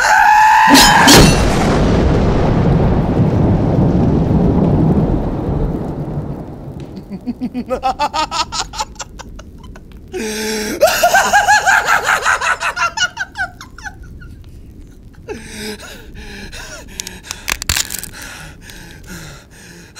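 A thunderclap breaks and rumbles for several seconds, slowly dying away. Then a man laughs in short, rhythmic bursts, quietly at first, then loudly for about three seconds from around ten seconds in.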